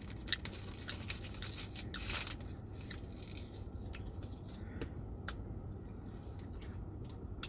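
A person chewing food close to the microphone: scattered soft clicks of chewing, with a short crunchy rustle about two seconds in, over a low steady hum.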